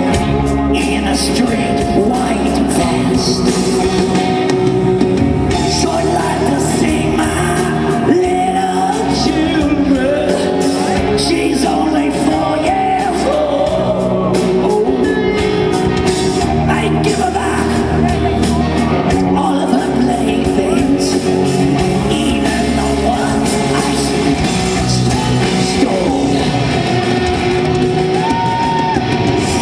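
Live rock band playing loudly with a male lead singer, recorded from the audience in a concert hall.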